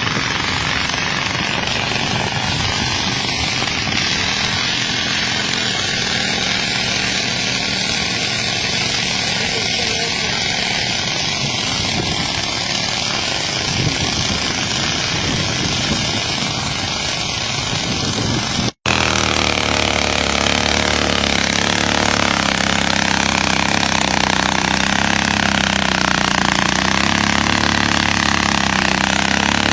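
Motorcycle engine running through floodwater, with a dense rush of splashing water over it; after a cut about two-thirds of the way through, the engine runs steadily with a clear, even note that wavers slightly.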